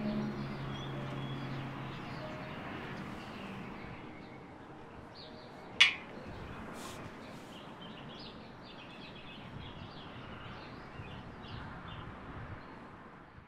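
Outdoor ambience with birds chirping and a low hum fading over the first couple of seconds. About six seconds in, a metal ring is set down on a railing with a single sharp clink.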